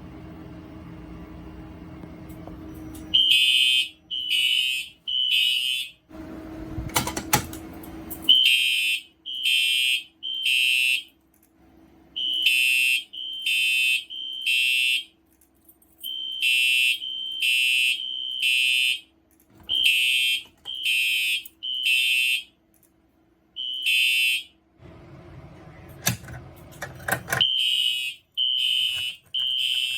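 Fire alarm horn sounding the temporal-three evacuation pattern: a high electronic beep repeated three times about a second apart, then a short pause, over and over. It starts about three seconds in and is broken twice by short bursts of rustling noise.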